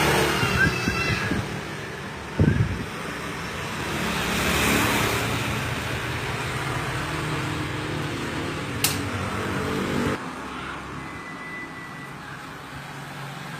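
A steady low motor-like rumble that cuts off suddenly about ten seconds in, with a loud knock about two and a half seconds in and a sharp click near nine seconds. A few faint short high chirps sound near the start and again about eleven seconds in.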